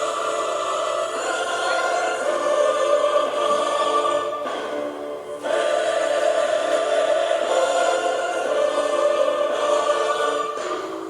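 Choral music: a choir singing held chords, with a short break about five seconds in.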